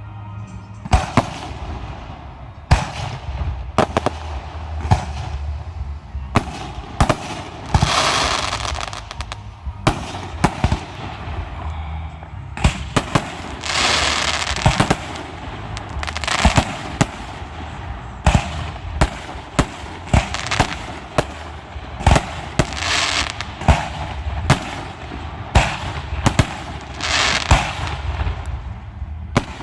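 Aerial fireworks show: a steady barrage of shell bursts going off one after another, many booming bangs, with several bursts followed by a second or so of dense crackling.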